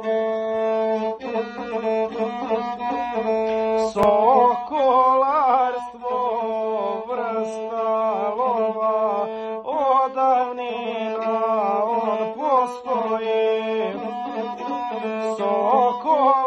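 Gusle, the single-string bowed folk fiddle, played solo. It holds a long steady note at first, then from about four seconds in moves into bending, ornamented melodic figures between further held notes, as an instrumental introduction to sung epic verse.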